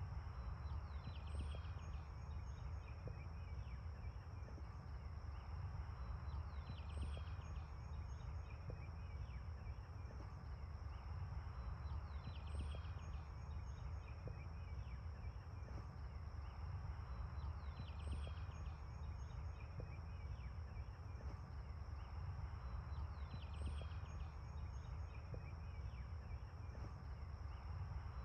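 Outdoor ambience: a steady low wind rumble, with a bird repeating a short trilled song about every five and a half seconds.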